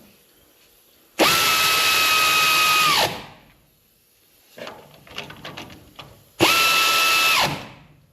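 Pneumatic air wrench running in two bursts, about two seconds and then about one second, each a steady whine that cuts off. It is spinning head nuts down onto their studs to snug the cylinder head, with light clicks between the bursts.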